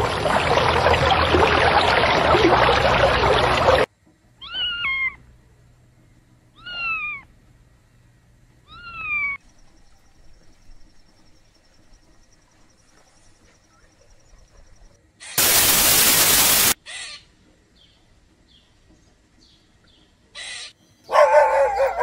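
A loud rushing noise for the first four seconds. Then three short meows from a cat or kitten, each falling in pitch, about two seconds apart. Later comes a loud burst of hiss lasting just over a second.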